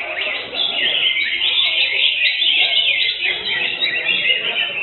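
Several caged cucak hijau (greater green leafbirds) singing at once, a dense, unbroken run of fast chirps and warbled phrases, with a low murmur of voices underneath.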